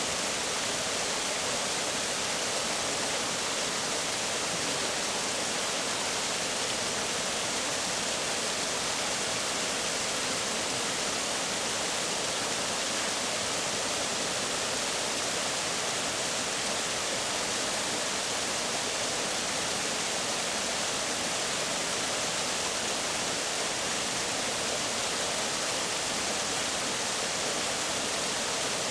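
Waterfall and the stream below it, rushing water making a steady, unbroken hiss.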